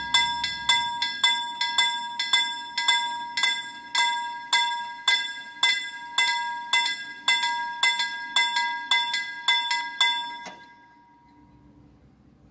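LM Ericsson KLD-43 mechanical level-crossing bell ringing: a hard metallic strike just under twice a second with lighter strikes in between, warning that the crossing is closing as the barriers lower. It stops about ten and a half seconds in, and the last ring fades.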